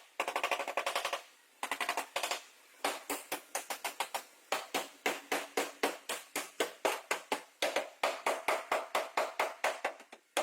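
Repeated hammer blows on car body sheet metal, as in panel beating a crash-damaged panel. Two short bursts of very fast strikes come first, then a long run of separate, evenly spaced blows at about five or six a second.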